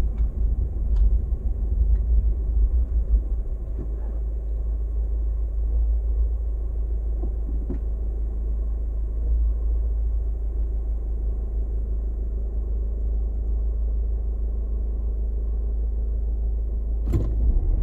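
Steady low rumble of a car heard from inside its cabin, the engine running while the car waits or creeps slowly in city traffic.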